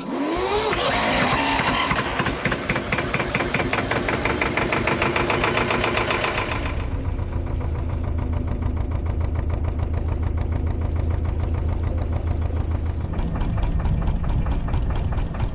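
Narrowboat engine starting, with a rising spin-up in the first second, then running with a fast, even knocking beat. About seven seconds in it settles into a deeper, heavier running.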